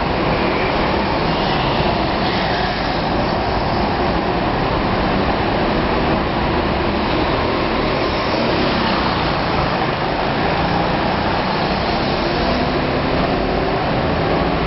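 Go-kart engines running laps around an indoor track, a steady, unbroken din with no pauses.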